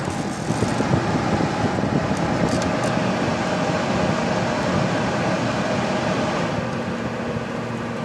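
Late-1960s Sears Coldspot 18,600 BTU window air conditioner running, its new Fasco fan motor blowing a steady rush of air through the grille. About six and a half seconds in, the rush eases and a steady low hum stands out as the fan drops to low speed.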